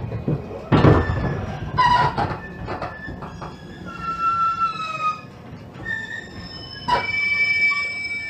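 JR Kyushu 813 series electric train heard from inside the car while running: a steady rumble broken by several sharp thumps and clatters, with the thin whine of its Toshiba GTO VVVF inverter in a few held tones, one falling slightly near the middle.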